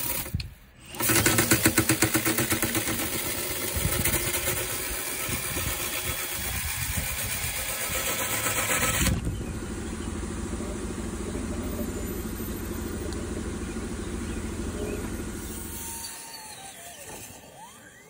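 Power-driven rotary brush spinning inside a dryer vent duct: a loud machine whir with a fast, even flutter. About nine seconds in it cuts to a steadier, lower machine hum that fades out near the end.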